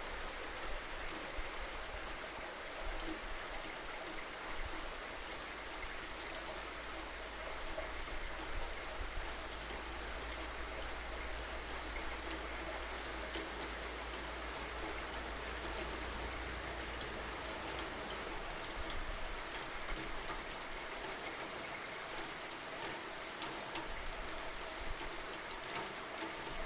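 Steady rainfall, an even hiss with many individual drops ticking on a surface.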